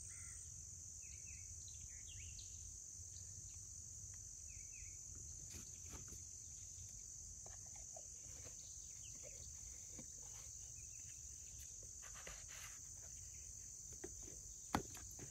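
A faint, steady, high insect chorus, with a few soft knocks and one sharp click near the end.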